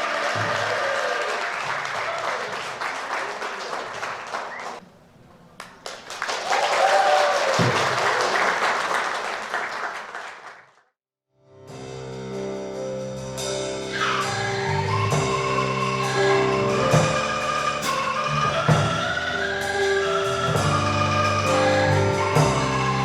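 Angklung music: an ensemble of shaken bamboo tubes sounding steady pitched notes over a regular beat. It follows a noisier, muddier first half and a brief break to silence about eleven seconds in.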